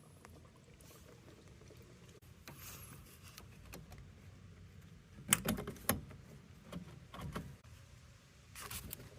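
Hand-work noises: a quiet stretch, then a cluster of knocks and clicks with some scraping about five seconds in, and more knocks starting near the end.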